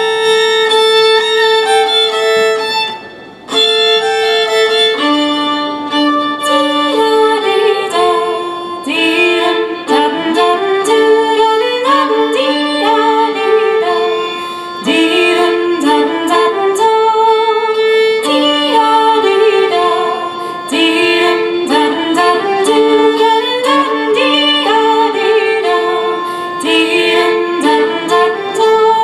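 Fiddle and accordion playing an English folk dance tune together live, with a brief break about three seconds in.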